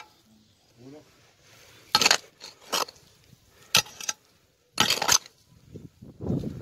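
A metal hoe blade striking dry, stony soil: about four sharp clinking strikes roughly a second apart as the ground is dug out.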